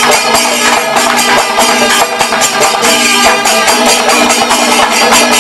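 Kerala temple drum ensemble (panchavadyam) playing: a dense, fast run of hand-drum strokes, with brass cymbals ringing over them throughout.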